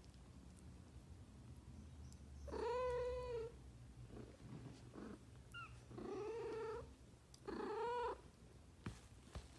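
Mother cat meowing three times, each call rising then falling in pitch, over a steady low purr.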